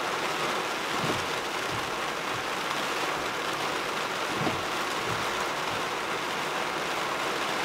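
Heavy rain falling on a parked truck, heard from inside the cab: a steady hiss of rain on the roof and windshield, with a few scattered soft thuds.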